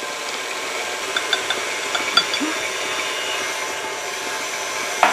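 KitchenAid Artisan stand mixer running steadily, its beater creaming butter in the steel bowl as sugar is poured in, with a few light clicks about a second or two in and a short sharp sound right at the end.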